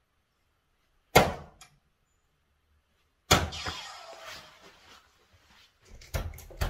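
Soft-tip darts hitting a Gran Board 3s electronic dartboard: one sharp plastic thud about a second in, then a second hit a little past three seconds followed by the board's electronic sound effect fading out. Near the end come a few clicks and knocks as the darts are pulled out of the board's plastic segments.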